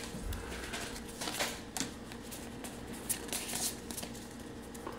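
Pokémon trading cards being handled, slid and flicked against one another in the hands, with a few faint soft clicks and rustles.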